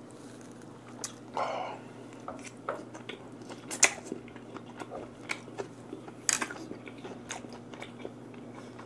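Close-miked chewing of a mouthful of vinegar-cured mackerel sashimi (shime saba) with sprouts, wet and smacking, with many small sharp mouth clicks.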